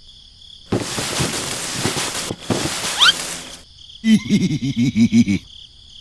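Steady, high-pitched insect chirring, like crickets, broken by two loud bursts of rough hissing noise, about one and three seconds in, and a rapid pulsed buzzing from about four to five seconds in.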